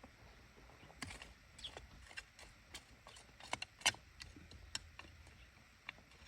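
Stones knocking against each other as they are set in place around a planted seedling: a run of irregular sharp clacks, loudest about halfway through.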